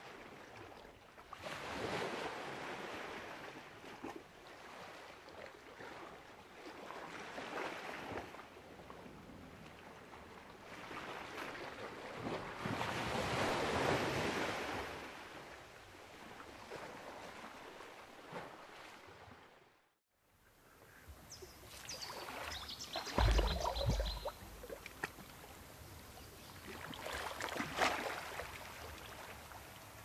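Small waves washing onto a cove beach, each wash swelling and fading over a few seconds. About two-thirds through the sound cuts out for a moment, then comes back with a cluster of clicks and a low thump before another wave washes in near the end.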